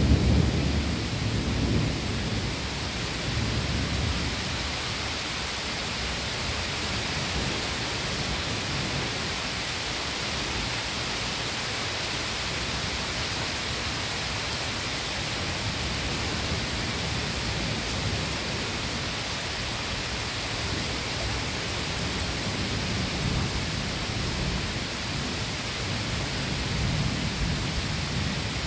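Steady rain falling during a thunderstorm. A roll of thunder fades out over the first few seconds, and a faint low rumble of distant thunder swells again near the end.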